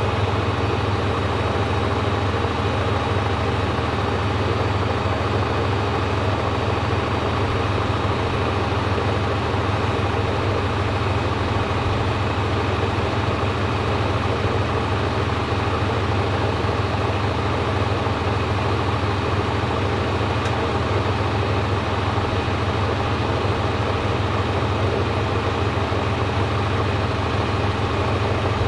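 Washing machine running with a steady, even hum and no breaks.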